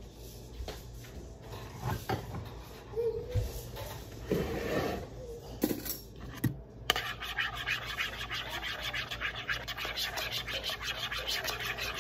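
A utensil stirring melted butter and honey in a plastic bowl, scraping against the bowl in quick, even strokes, several a second, from about halfway through. Before that come a few scattered knocks and clatters.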